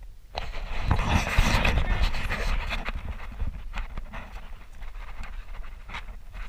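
Footsteps crunching on a gravel path. About half a second in there is a loud rushing noise on the camera's microphone for about two seconds as the camera is swung round.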